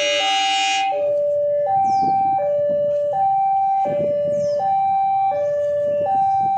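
A railway locomotive horn holds a chord and cuts off about a second in. Under it and after it, an electronic two-tone warning alarm, of the kind sounded at railway level crossings, alternates between a lower and a higher tone, each held about three-quarters of a second. Low rumbling and clattering rise and fall beneath it.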